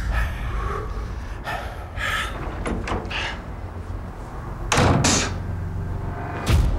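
Fistfight scuffle: a run of knocks and thuds from blows and bodies colliding, with two heavy impacts near the end.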